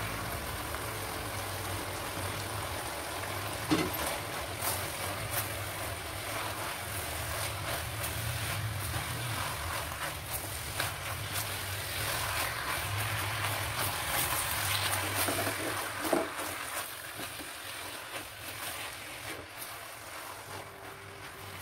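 Chow mein of moringa noodles and vegetables sizzling in a wok as it is stirred and tossed with a silicone spatula, with scattered taps and scrapes of the spatula against the pan.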